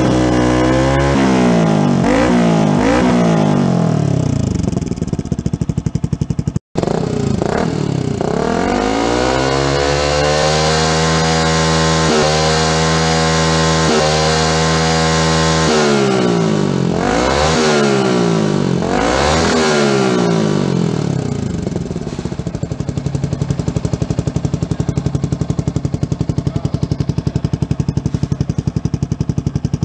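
Yamaha R15's single-cylinder four-stroke engine through a Sakura aftermarket muffler, free-revved at a standstill: several quick throttle blips, revs held high for several seconds, more blips, then settling to a steady pulsing idle for the last third.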